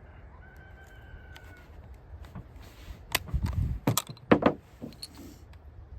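A few sharp metallic clicks and clacks within about a second and a half, typical of a Kar98k Mauser's bolt being worked to clear a misfired 8mm round.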